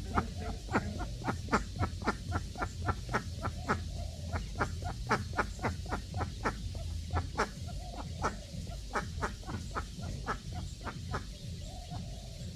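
Duck quacking in a rapid run of short, clipped quacks at about four a second, with brief breaks and stopping near the end.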